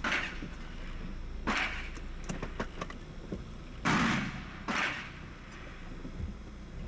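Gunshots on an outdoor shooting range: four separate reports at irregular intervals, each with a short echoing tail, the loudest about four seconds in, with a few fainter clicks between them.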